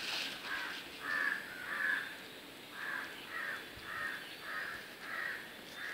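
A bird calling over and over: a series of about nine short calls, nearly two a second.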